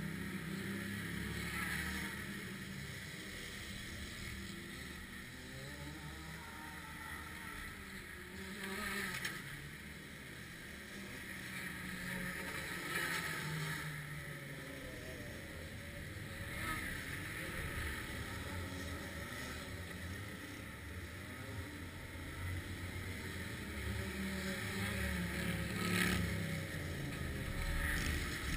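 Racing kart engines on the track swelling and fading as karts pass every few seconds, over a steady low rumble and wind on the microphone.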